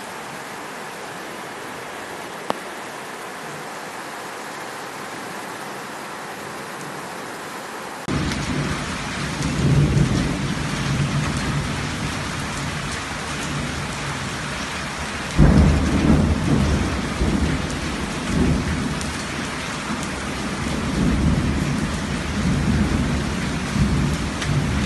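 Heavy rain mixed with hail pelting down onto a tiled patio and garden soil, a dense wash of fine ticks. It comes with low rumbling surges, one starting suddenly and loud about halfway through. Before it, a quieter steady hiss of rain.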